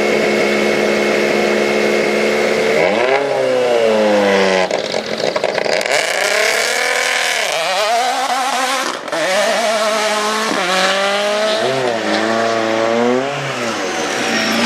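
A rally car's engine at high revs, held steady for about three seconds and then rising and falling again and again through gear changes and lifts off the throttle.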